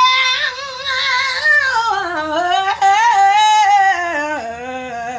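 A woman singing a gospel song, drawing out one long wordless run: a high held note with vibrato that slides lower in steps, ending on a low note near the end.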